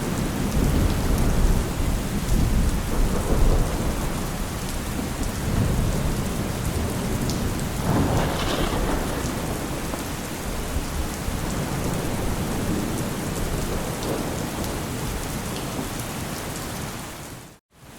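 Heavy rain falling steadily with rolling thunder, the low rumble heaviest in the first few seconds and a brief brighter swell about halfway through. The sound dies away to silence for a moment near the end.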